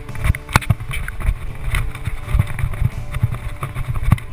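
Wind buffeting the camera microphone in gusts, with irregular knocks and rustles of handling noise.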